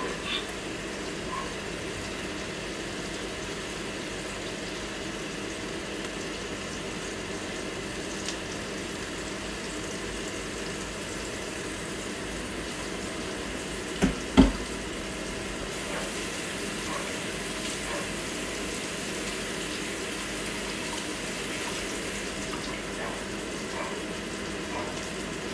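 Microwave oven running with a steady whirring hum, with two short knocks about fourteen seconds in.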